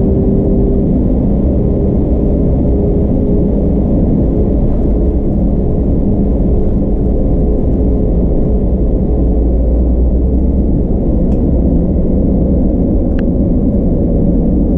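Airbus A320neo's Pratt & Whitney PW1100G geared turbofan engines running at low power, heard inside the cabin: a steady low rumble with a humming tone that edges slightly higher near the end.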